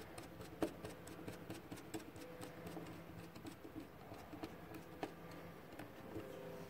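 Faint handling noise of wiring work on a contactor: scattered light ticks and rustles, with two sharper clicks, one under a second in and one about five seconds in, as a motor lead is fitted to the contactor's output terminal. A faint steady hum lies underneath.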